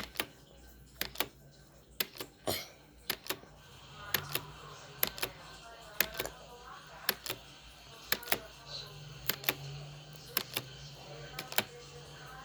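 A timer ticking about once a second, each tick a quick double click, with faint voices or music underneath.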